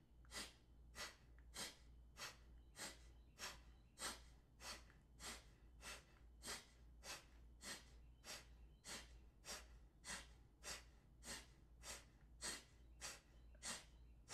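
Faint, short, forceful exhalations through the nose, one nostril at a time: alternate-nostril Kapalabhati breathing. The puffs come in a steady, even rhythm of a little under two a second.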